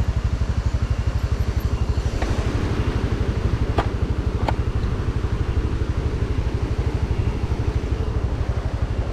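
Motorcycle engine running steadily while riding, a fast even low pulsing. Two short clicks come about four seconds in.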